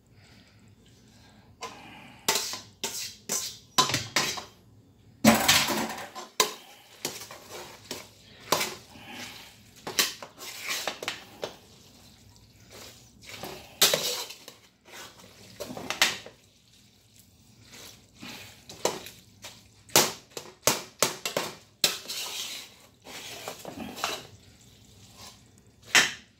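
A spoon stirring goulash of macaroni, corn and tomato sauce in a large aluminium stockpot, knocking and scraping against the pot in an irregular run of clanks.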